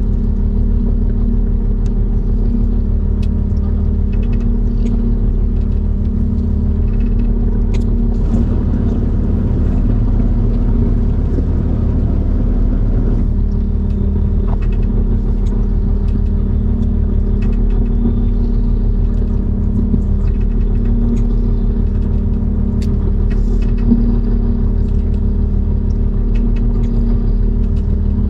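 Fishing boat's engine running steadily: a loud low drone that pulses slowly, with a few light ticks over it.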